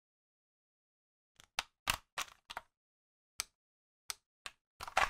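Hard plastic clicks and knocks from a DX Desire Driver toy belt as its grey strap piece is fitted into the side of the driver body. It is silent at first; a quick run of clicks comes about a second and a half in, then a few single clicks, and a louder cluster of clicks near the end.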